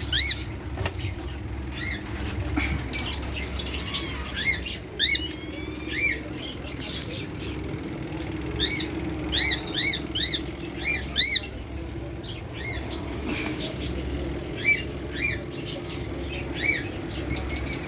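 Cockatiel chirping: many short, arched chirps repeated in pairs and small runs, over a low steady hum.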